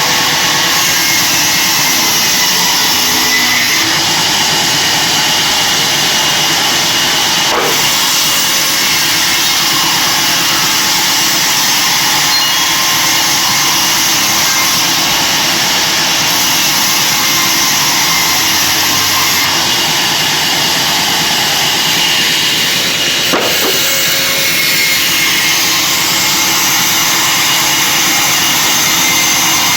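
Sawmill bandsaw running loud and steady, a dense mechanical noise with a steady whine. Two brief knocks break through, about 8 and 23 seconds in.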